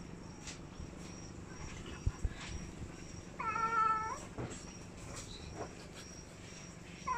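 A domestic cat gives a single drawn-out meow about halfway through.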